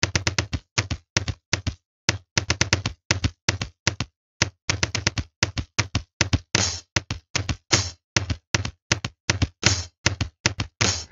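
A rapid, uneven series of sharp percussive taps and knocks, about three to four a second, with dead silence between the hits.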